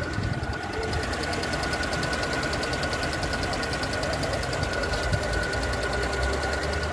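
EVAP canister purge valve on a petrol Mercedes B-Class engine ticking rapidly and evenly over the idling engine, with a steady whine alongside. It is the valve's normal sound while it is switched on, not a fault.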